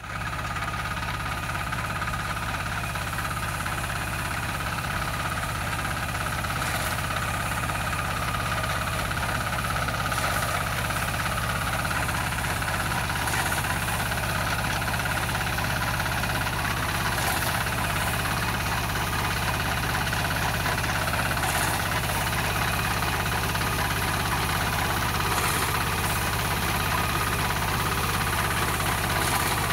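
Walk-behind two-row reaper binder (model 4K-50) with its engine running steadily under load as it cuts and binds wheat, with a faint tick about every four seconds.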